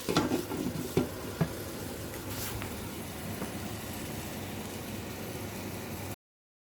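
Bitter gourd (karela) frying in a pan with a steady sizzle, with a few sharp clanks of metal cookware in the first second and a half. The sound cuts off suddenly near the end.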